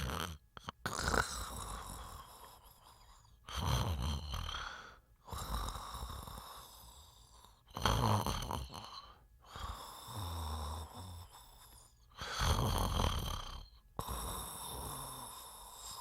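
A sleeping person snoring, about four breaths in a row roughly four seconds apart, each starting with a loud low snore that fades into a longer breath.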